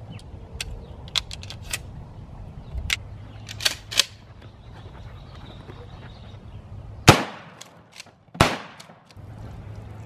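Two 12-gauge shotgun shots about a second and a half apart, each a sharp blast with a short echoing tail. The rounds are Winchester PDX1 Defender shells, a rifled slug with 00 buckshot. A few light clicks come before them.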